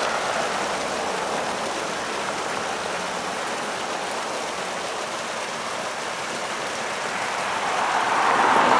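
Steady hiss of outdoor background noise, swelling over the last second or so as a car approaches.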